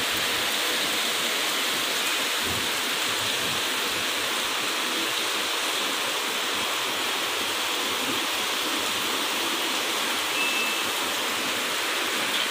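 Heavy rain falling steadily on a paved street with standing water, an even hiss that does not let up.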